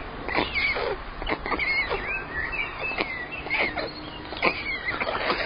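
Birds calling in short, squeaky chirps that rise and fall in pitch, mixed with scattered sharp clicks.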